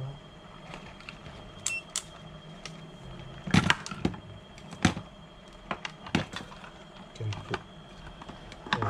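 Irregular sharp clicks and knocks of wires, plugs and the plastic pump box being handled, over a steady low hum.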